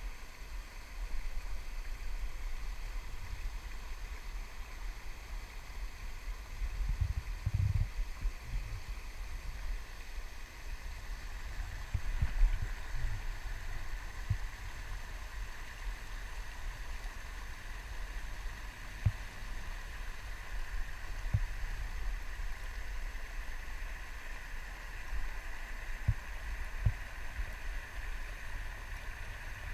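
River water rushing over a low weir, a steady rush that grows stronger from about halfway through. Several dull low thumps, the loudest around a quarter and two fifths of the way in, sit under it.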